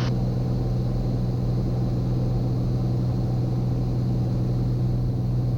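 Steady drone of a Cirrus SR22T's turbocharged 315-horsepower piston engine and propeller, heard inside the cabin in flight.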